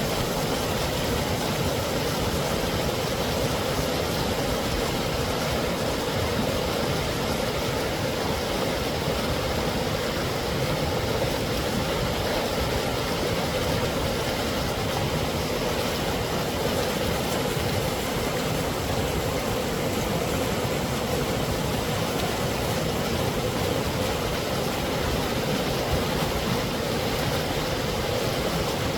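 Mountain creek cascade over rock ledges, the water rushing steadily and evenly.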